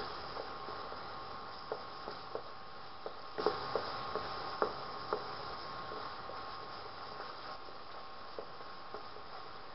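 Wooden spatula stirring and scraping thick tomato masala frying in a pan, with irregular light knocks against the pan, a cluster of them about three and a half seconds in. Under it a steady hiss and a steady high hum from the induction cooktop.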